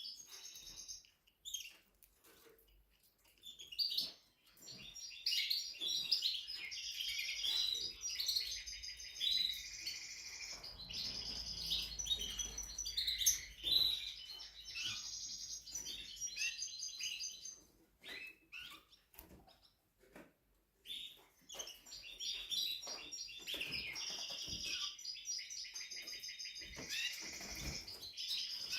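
Spanish Timbrado canary singing long strings of rapid trills and rolls, breaking off for a few seconds about two-thirds through, then resuming.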